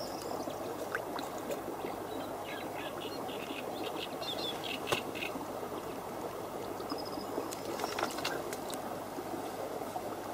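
Quiet outdoor ambience: a steady soft hiss with a few faint bird chirps scattered through it and a couple of small clicks near the middle.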